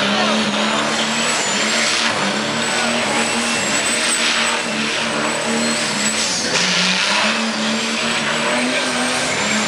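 Turbocharged kart engine held at high revs while the rear tyres spin in a smoky burnout, the engine note wavering and dipping briefly before climbing again, over a hissing tyre scrub that swells several times.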